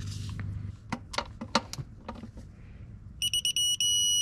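Digital torque wrench tightening a camshaft bearing cap bolt. A few ratchet clicks come first, then about three seconds in a run of short high beeps turns into one long beep, the wrench's signal that the set torque of 17 ft-lb has been reached.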